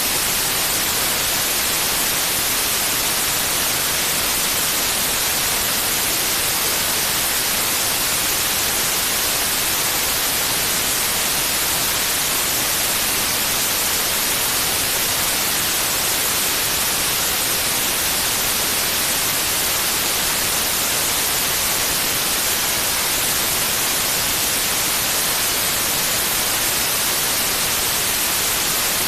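Steady white noise: an even, unbroken hiss that does not change.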